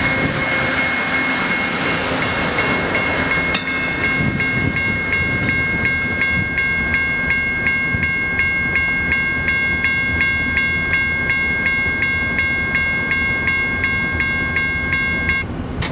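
Passenger train cars rolling past on the rails, their wheel rumble fading over the first few seconds. A railroad crossing bell rings in a steady, rapid rhythm as the rear car clears the grade crossing, and stops shortly before the end.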